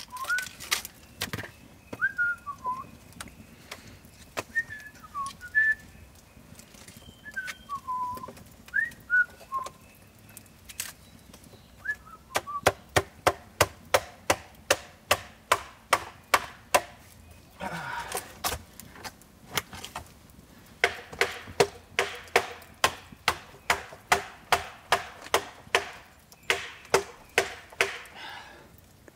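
Rapid hard knocks of wood on a blade, about two to three a second, batoning through a piece of firewood; they start about twelve seconds in and pause briefly twice. Short high whistled chirps come and go before the knocking starts.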